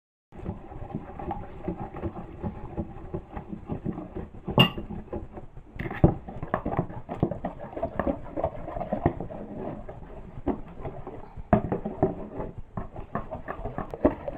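A spoon stirring palm oil and a thickening soluble solution together in a bowl: a dense, irregular run of scraping and clicking against the bowl, with a few sharper knocks. The mixing turns the oil thick and changes its colour.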